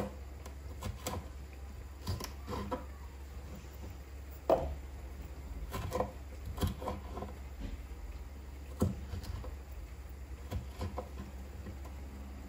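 Kitchen knife dicing a red bell pepper on a wooden cutting board: irregular knocks of the blade on the board, with a sharper knock about four and a half seconds in.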